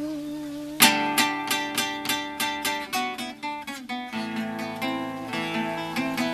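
Acoustic guitar strummed in even, rhythmic chords, about three strokes a second, beginning about a second in after a held note dies away.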